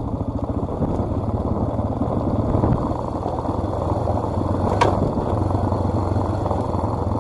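Motorcycle engine running steadily while riding, with one sharp click about two-thirds of the way through.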